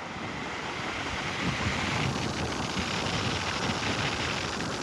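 2003 Mercedes G500's climate-control blower pushing air out of the dash vents just after the AC is switched on, a steady rush of air that builds over the first couple of seconds and then holds.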